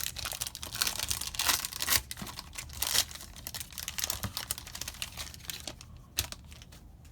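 Foil booster pack wrapper crinkling and tearing as it is handled and opened. The crackling is dense at first, then thins out to a few scattered clicks.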